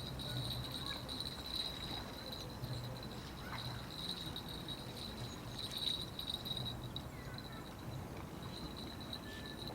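A steady, high-pitched chirring trill that pulses slightly, breaks off about seven seconds in and starts again near the end, over a faint low hum.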